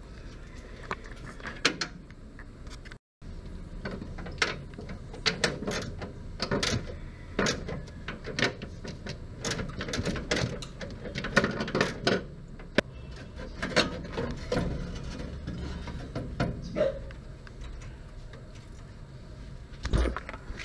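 Irregular metallic clicks and knocks of a ratchet on a long extension and of radiator mounting hardware as a pickup's radiator is unbolted and worked loose, with a few louder clunks scattered through.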